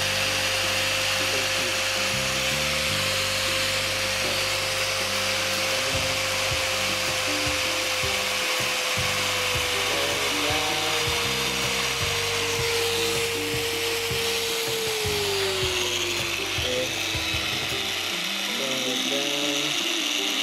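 Angle grinder motor running slowly on a DIY speed controller, a steady whine that drops a little about halfway and then glides clearly lower about three quarters of the way through as the controller is turned down. Background music plays along.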